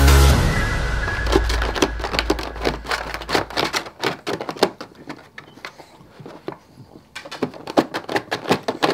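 English bulldog puppy chewing and pawing at a thin plastic bag: quick, irregular crinkling and crackling of the plastic. Background music fades out over the first few seconds.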